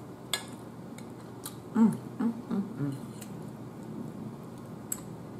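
Eating with a metal fork from a plate: a few sharp clicks of fork against plate, with short hummed "mm" sounds of someone chewing about two seconds in.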